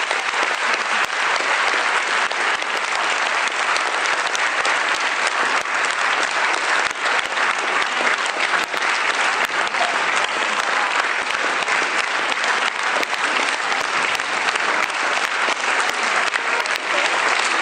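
Theatre audience applauding steadily, dense continuous clapping from a full hall.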